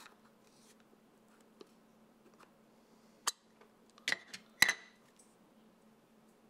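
A few sharp clicks and clacks of a magnetic lens-filter cap being pulled off and set down on a wooden table, the loudest about four and a half seconds in, over a faint low hum.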